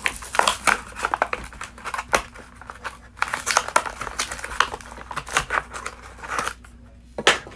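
Cardboard backing card and clear plastic blister of a Hot Wheels package being bent, torn and peeled apart by hand: a run of crinkling, crackling and tearing, with a louder crack near the end.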